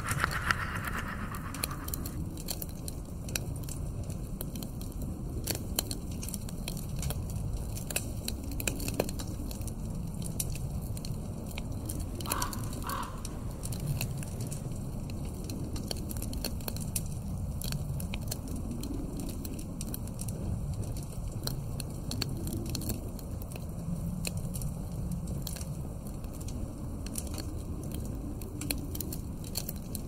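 Log fire crackling in a fireplace over a low wind that slowly swells and fades. A short call sounds at the very start and two more, close together, about twelve seconds in.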